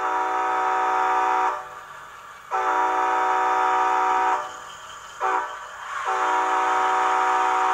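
Model-train sound decoder horn in a Bachmann N scale SC-44 Charger (TCS WoW Sound) sounding the grade-crossing signal: two long blasts, one short blast, then a final long blast. The horn is a multi-note chord.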